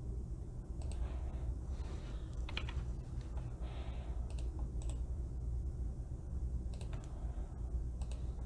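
Scattered clicks from a computer mouse and keyboard, sparse and irregular, over a steady low hum.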